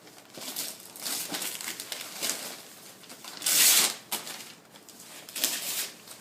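Gift wrapping paper being torn and crumpled as a present is unwrapped, in irregular rustling bursts, the loudest about three and a half seconds in.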